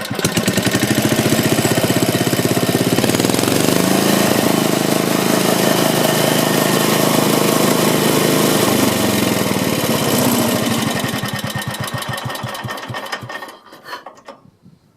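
Soviet UD-series small air-cooled stationary engine running: it revs up a couple of seconds in, holds at higher speed, drops back, then is shut off. Its firing slows into separate beats and it coasts to a stop near the end.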